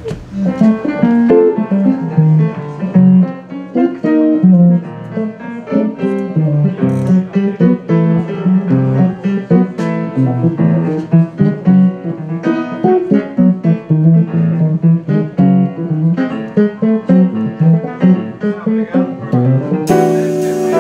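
Instrumental jazz from a small band: an electric archtop guitar playing a busy line of notes over bass and drums. Near the end it cuts abruptly to a different, denser passage.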